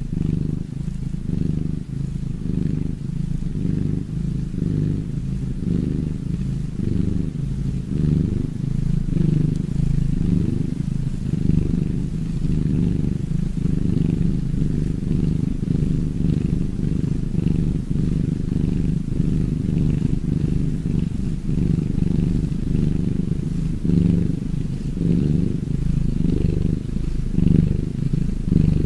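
Domestic cat purring continuously, low and muffled, with a steady pulsing rhythm.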